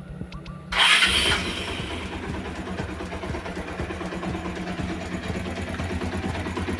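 Bajaj Pulsar's single-cylinder engine electric-started, catching about a second in, then idling steadily, freshly fitted with a new one-way starter clutch to cure a noise from the flywheel side.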